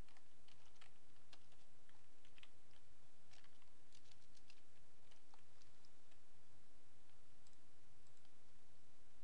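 Scattered clicks of a computer mouse, irregular and spread through the whole stretch, over a steady low electrical hum.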